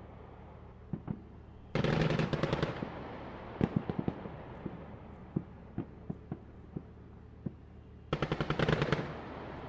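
Machine-gun fire in two short rapid bursts, each about a second long. Scattered single shots sound between the bursts.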